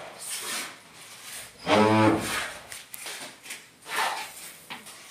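Short scraping and rubbing strokes of a wall tile being pressed and worked into place on its adhesive, with a brief low hum about two seconds in.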